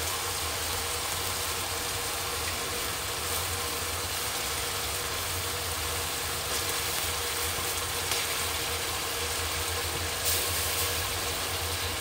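Onion and ginger-garlic paste sizzling steadily in oil in a steel pot, over a steady low hum. A couple of brief soft knocks come late on as tomato pieces drop in.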